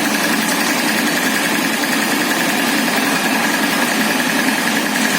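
Motor grader engine running steadily, with a thin high whine held on top.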